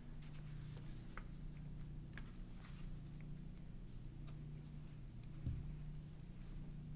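Pages of a paperback book being leafed through: faint, scattered paper flicks and ticks over a steady low room hum, with one soft low thump about five and a half seconds in.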